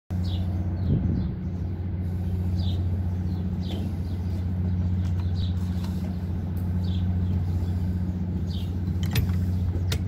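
Steady low machine hum, with a small bird chirping briefly every second or so. A couple of sharp clicks come near the end.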